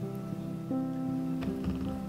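Background music: gentle plucked acoustic guitar notes.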